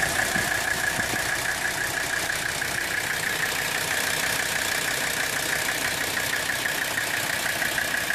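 An engine running steadily at a fast, even idle, with a steady high tone over it.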